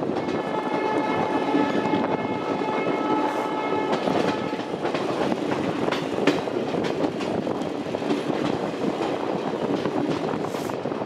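A train horn sounds one long steady blast for about five seconds over the rumble of a passenger coach rolling on the rails. After the horn stops, the coach's wheels click irregularly over rail joints and points.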